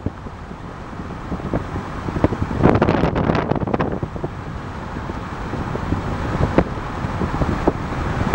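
Road noise of a moving car, a steady low rumble, with wind buffeting the microphone in gusts, heaviest about two and a half to three and a half seconds in.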